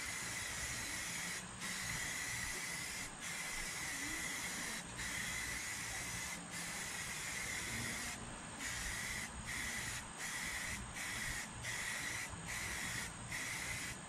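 Aerosol spray-paint can hissing in repeated passes, each cut by a brief stop as the nozzle is released. The stops come about every second and a half at first and more often, nearly once a second, in the second half.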